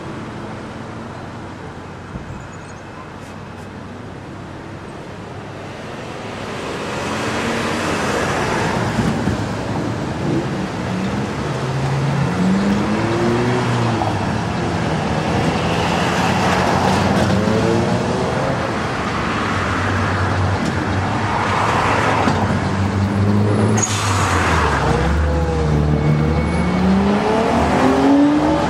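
Road traffic: a string of vehicles passing, their engines rising and falling in pitch as they accelerate and change gear. It grows louder about six seconds in.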